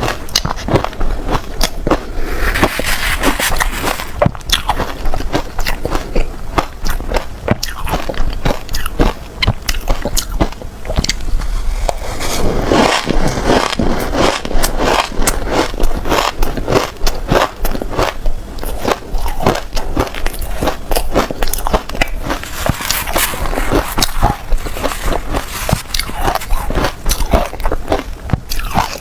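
Loud, close-miked crunching of shaved ice being bitten and chewed, a dense run of crisp crunches.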